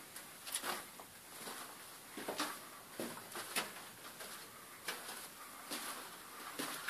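Footsteps crunching on the rock floor of an old mine tunnel, short irregular steps about one a second.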